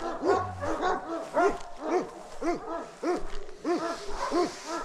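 Livestock guardian dog barking in a rapid, continuous run of short barks, about three to four a second.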